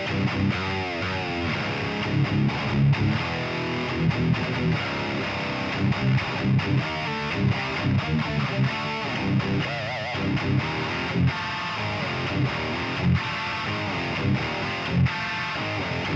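Heavily distorted electric guitar playing metal riffs through a prototype 22k high-output pickup: chugging low notes with loud accents about once a second, plus wavering bent or vibrato notes about a second in and near the middle.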